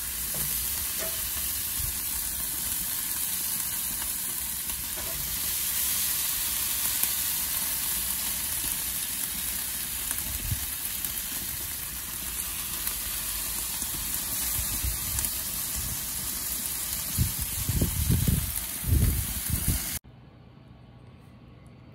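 Barbecue-sauced chicken drumsticks sizzling on a hot grill, a steady hiss. Near the end come a few low thumps, then the sizzle cuts off suddenly to a quiet low hum.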